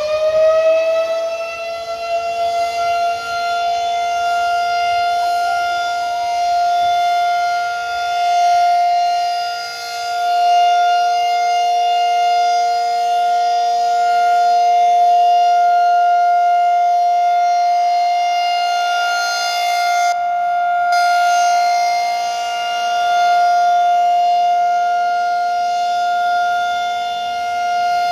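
Federal Signal 2001 SRN outdoor warning siren at full speed, sounding one steady tone with overtones after its wind-up. The loudness swells and fades every few seconds as the rotating siren head sweeps around.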